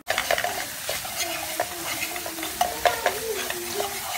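Beaten eggs sizzling in hot oil in a nonstick frying pan while a wire whisk stirs and scrapes through them, with frequent clicks of the whisk against the pan.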